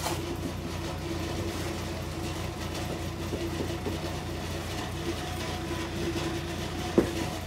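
Steady low motor or engine hum with a wavering tone over it, and a single sharp knock near the end.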